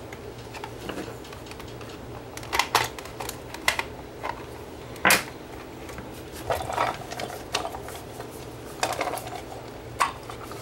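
Scattered plastic clicks and knocks as a portable CD player's batteries are pulled from their compartment and the player's plastic case is handled and set on the work mat; the loudest knock comes about five seconds in.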